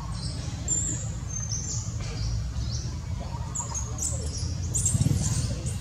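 Short, high animal chirps, some rising and some falling, repeat at irregular intervals over a steady low rumble. The rumble grows louder near the end.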